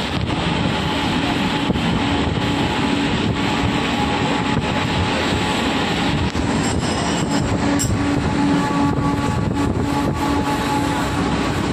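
A moving passenger train heard from an open coach doorway: a steady loud rumble of the wheels on the track, with a low hum and scattered clacks.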